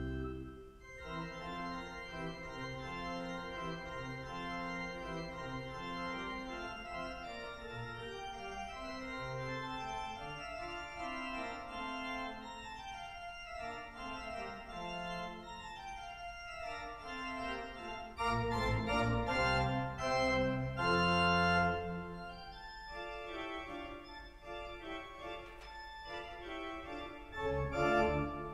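Leeds Minster's pipe organ playing a lively solo passage of running notes, with falling runs midway and a louder stretch with heavy bass notes about two-thirds of the way through.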